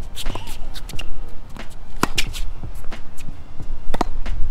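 Tennis ball being struck by a racket and bouncing on a hard court: a few sharp pops, the loudest about two seconds in and again near the end, over a steady low rumble.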